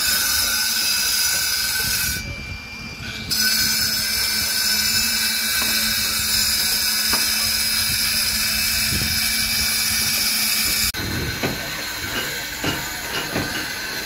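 Handheld angle grinder cutting concrete: a loud, steady, high-pitched grinding hiss that eases off for about a second near two seconds in, then comes back. It stops abruptly about eleven seconds in, leaving quieter site noise with scattered knocks.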